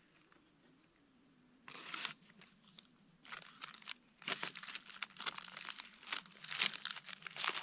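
Wrapper of a freeze-dried ice cream sandwich crinkling and tearing as it is peeled open by hand. There is a short rustle about two seconds in, then the crinkling runs on almost continuously from about three seconds in.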